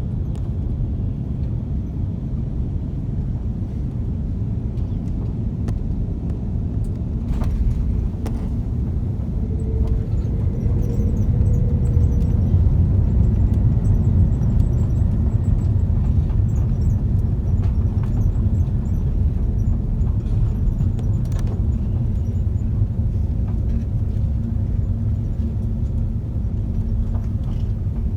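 Airbus A330-300 landing, heard from inside the cabin: a steady low rumble of engines, airflow and runway. It grows louder about a third of the way in, with a few sharp knocks around then.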